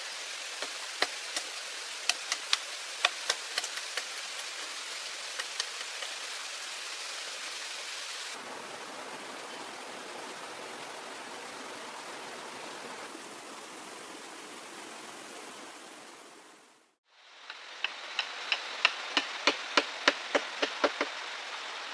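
Sharp knocks, like hammering or tapping on wood, repeating irregularly over a steady hiss of water. The knocks stop after about six seconds, leaving only the hiss, then return in a quick run near the end after a brief dropout.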